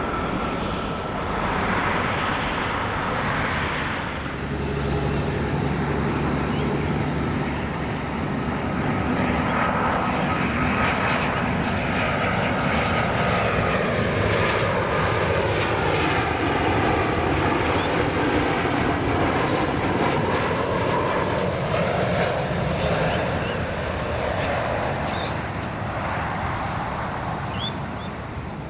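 An airliner passes close, its engines running loud and steady for the whole stretch. The roar sweeps and swells in pitch as the aircraft goes by, then eases off slightly near the end.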